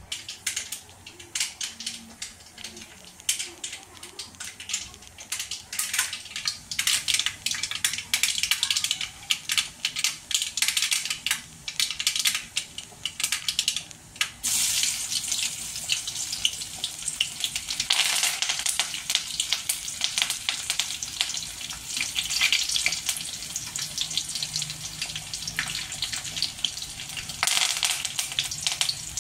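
Mustard seeds crackling and popping in hot oil in a steel kadai, a rapid irregular crackle. About halfway through it turns into a denser, louder sizzle, which surges again later as dried red chillies, garlic and curry leaves fry in the oil.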